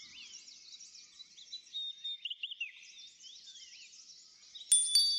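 Birds chirping in a steady background chorus. Near the end a high-pitched chime rings out suddenly and keeps ringing.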